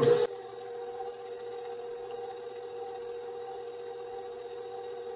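A brief loud sound at the very start, then a KitchenAid stand mixer's motor running steadily with a constant whine, driving its spiralizer attachment.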